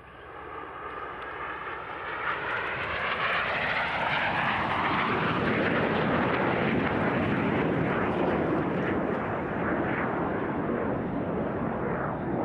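Aermacchi MB-339 jet trainers of an aerobatic team flying past in a formation break. The jet noise builds over the first few seconds with a rising whine, then becomes a loud, steady roar that eases slightly near the end.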